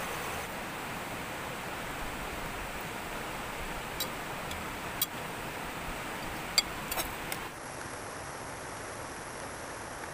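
Steady rush of flowing water, with a few sharp clicks between about four and seven seconds in. About three-quarters of the way through the rush becomes slightly quieter and duller.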